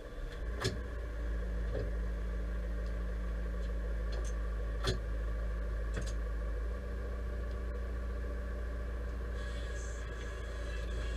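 Deutz-Fahr 5100G tractor engine idling steadily, heard from inside the cab, with a few sharp clicks. A faint hiss joins near the end.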